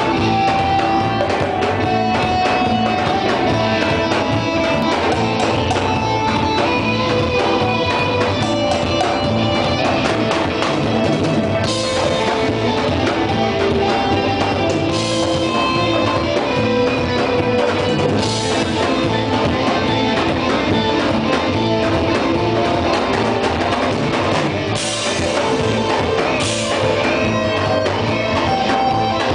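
Live rock band jamming: electric guitar playing held lead notes over a full drum kit, with cymbal crashes several times in the second half.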